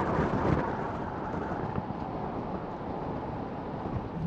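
Wind rushing over an exterior-mounted microphone, with tyre and road noise from a truck rolling along a gravel road.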